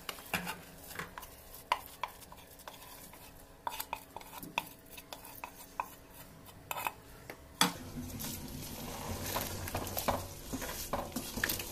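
A wooden spatula scraping and knocking against metal pots as cooked rice is scooped from one vessel into a pot of dal and vegetables and stirred in: a run of irregular sharp knocks and scrapes.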